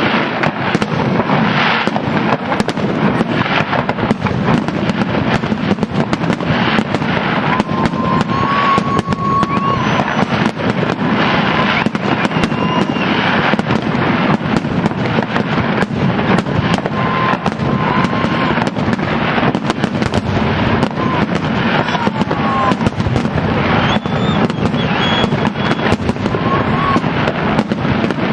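Fireworks going off in a dense, continuous barrage: rapid crackling and bangs without a pause, with a few brief whistling tones over them.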